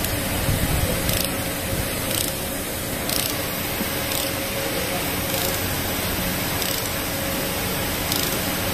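Ratchet wrench clicking in short runs about once a second as the injector hold-down bolt is tightened carefully by hand, over a steady hiss of background noise.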